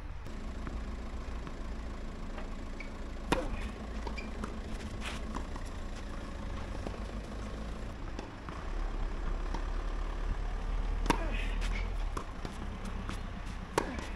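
About four sharp tennis-ball strikes, several seconds apart, over a steady low rumble.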